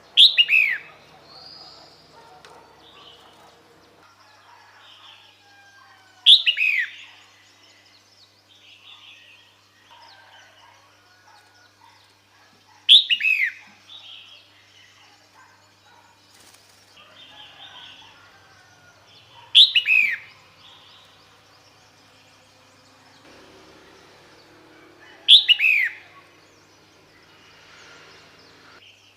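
Female red-whiskered bulbul calling: a short, loud call falling in pitch, repeated five times about every six and a half seconds, a call used to draw in a male. Fainter bird chirps sound between the calls.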